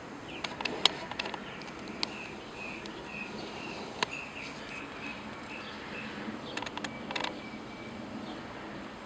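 A small animal chirping steadily, short high calls about two a second, over a steady background hiss. Sharp clicks come in a cluster about a second in, singly near two and four seconds, and in another cluster around seven seconds.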